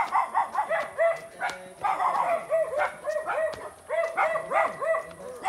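A dog barking rapidly and repeatedly in short, high barks, with a brief pause a little past the middle.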